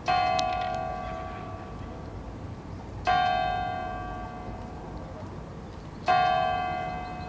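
A large church bell struck three times, about three seconds apart, each stroke ringing out and slowly dying away at the same pitch.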